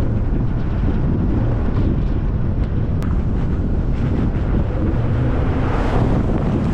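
Off-road vehicle engine running steadily while driving, under loud wind buffeting on the microphone.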